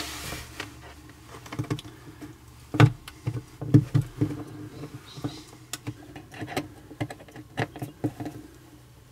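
Scattered light clicks, taps and rustles of handling as multimeter test probes and their leads are fumbled against the wire connectors behind a 12-volt outlet, with a few sharper clicks about three and four seconds in.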